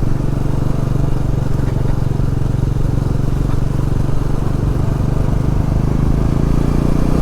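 Motorcycle engine running at a steady speed while being ridden, a constant low hum with road and wind noise.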